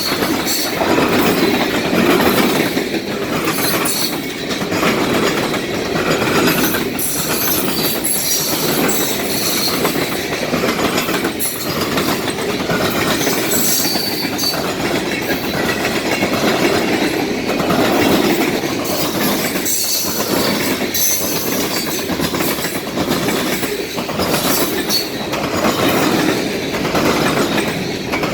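Norfolk Southern freight train 12Z's cars rolling past, wheels clacking steadily over the rail joints, with a few brief high-pitched wheel squeals.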